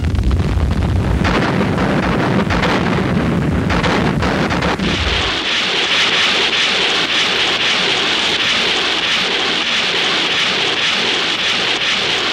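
Artillery shell explosions rumbling one into the next for about five seconds. Then the low rumble drops away, leaving a steady hissing rush.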